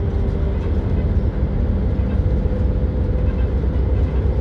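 Volvo B7RLE city bus with its 7-litre six-cylinder diesel, heard from inside the cabin while driving: a steady low engine and drivetrain drone. A faint whine climbs a little in pitch near the end.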